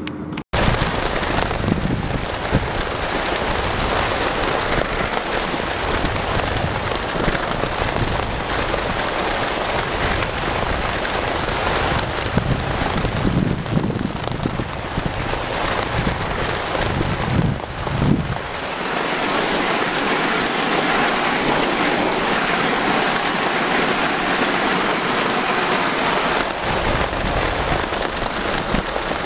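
Wind buffeting the microphone at the open window of a moving vehicle driving over sand, with engine and tyre rumble underneath; the low rumble eases off about two-thirds of the way through.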